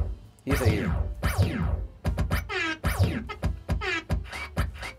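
JBL PartyBox 110 speaker playing its app's DJ sound effects: a rapid run of falling electronic sweeps, each with a low thump.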